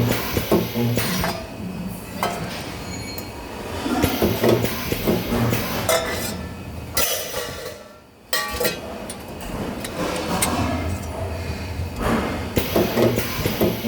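Metal-shop work noise: repeated sharp metal knocks and clinks, with short stretches of low electrical hum now and then, typical of spot-welding work.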